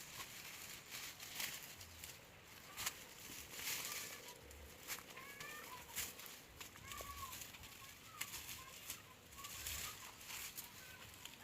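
Faint, repeated rustling swishes of weeds being worked, roughly one a second, with a few short bird calls near the middle.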